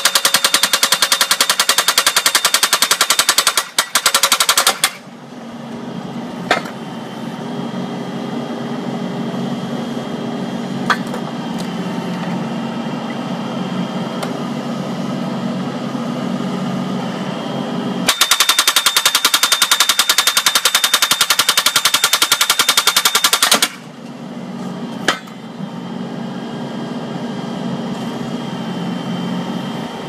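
Hydraulic breaker hammer on a backhoe's boom driving a splitting wedge into a log with rapid, continuous blows. It comes in two bursts, one at the start and another of about five seconds past the middle. Between them the backhoe's engine runs steadily, with a few single knocks.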